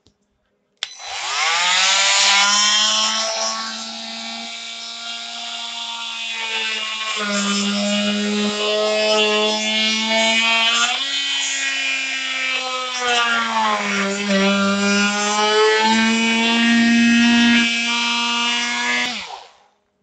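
Milwaukee oscillating multi-tool starting up with a quick rise in pitch, then buzzing steadily as its plunge blade cuts through plastic. Its pitch shifts up and down with the load, and the heat of the cut melts the plastic a bit. It switches off shortly before the end.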